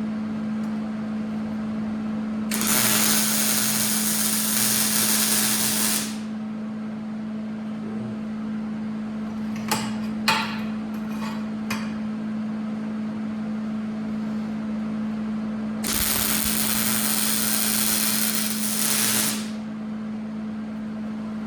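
Two bursts of welding on steel, each a steady crackling hiss lasting about three and a half seconds, one early and one past the middle, with a few light metal clicks between them. A steady low hum runs underneath throughout.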